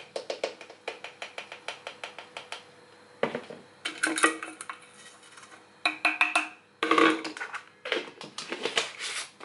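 Plastic scoop scraping and knocking in a tub of powdered supplement and against a plastic water bottle as the powder is scooped and tipped in. The first couple of seconds are a quick run of small clicks; after that come several short spells of louder plastic knocking and rattling.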